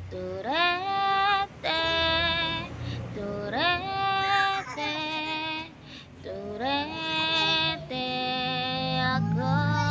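A woman singing a cappella in long held notes, with no accompaniment. Each of her several phrases slides upward into its first note.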